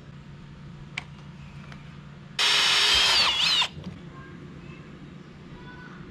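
A power drill runs once for just over a second, its motor whine dipping and picking up again near the end of the run, as work goes on drilling and tapping the tank.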